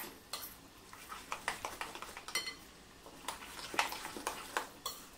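Metal spoon stirring thick green-pea and semolina idli batter in a bowl: irregular soft scrapes and taps of the spoon through the batter and against the bowl, with two brief ringing clinks, about two and a half seconds apart.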